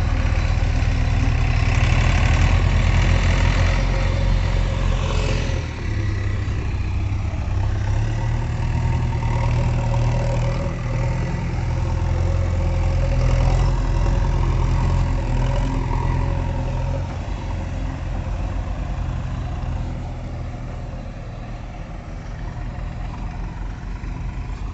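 JCB 3DX backhoe loader's diesel engine running while it works its front loader bucket; the heavy rumble rises and eases with the work and grows quieter over the last few seconds.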